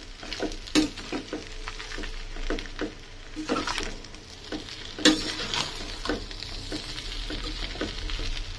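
Metal spatula stirring and tossing macaroni in a stainless steel pan. It scrapes and clinks against the pan at irregular moments, the sharpest strike about five seconds in, over a light frying sizzle.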